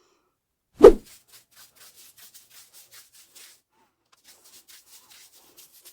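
Broom sweeping debris off a floor in quick, faint strokes, about four or five a second, with a short pause partway through. A single loud thump comes about a second in.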